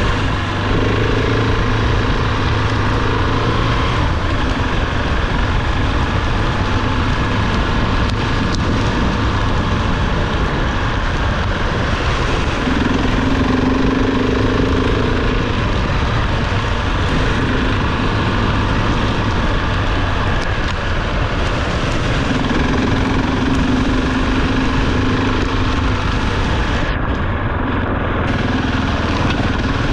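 Dual-sport motorcycle engine running under way on a dirt track, its note shifting a few times with speed, over a steady rush of wind noise.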